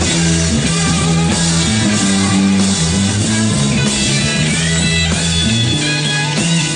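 Live blues-rock band playing an instrumental passage: electric guitar and bass over a drum kit, with no singing.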